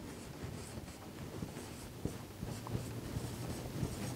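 Marker pen writing numbers on a whiteboard: a series of faint, short scratching strokes.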